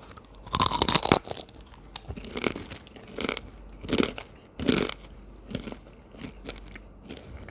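Someone biting into a crispy fried chicken finger, a loud crunch about half a second in, then chewing with a run of crisp crunches that grow fainter.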